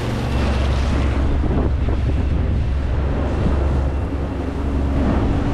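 Volkswagen 140 hp marine diesel engine of a sailing yacht running steadily at full throttle, a constant low drone. Wind buffets the microphone over rushing water.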